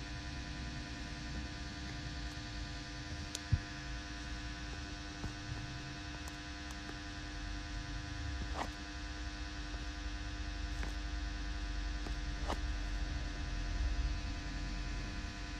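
Steady electrical hum over a low rumble, with a few faint clicks.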